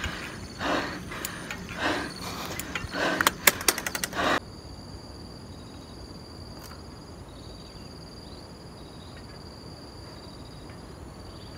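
Mountain-bike rider panting hard on a steep climb, breath coming about every half second, with a burst of rapid clicks and rattles from the bike about three to four seconds in. Then the sound cuts to a quiet, steady outdoor background with a faint high-pitched tone and a few short chirps.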